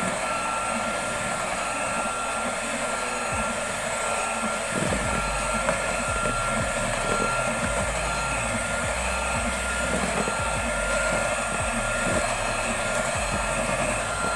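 Electric hand mixer running steadily at low speed, its beaters whirring through cake batter with a constant motor whine. Low knocks join in from about five seconds in.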